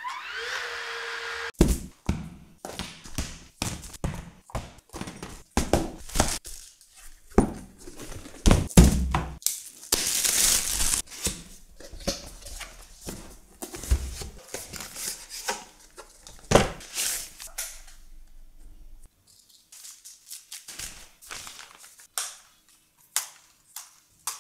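Packaging of a drone kit being handled and opened: irregular thunks, taps and clicks of boxes and parts being set down, with a longer rustling or tearing stretch about ten seconds in.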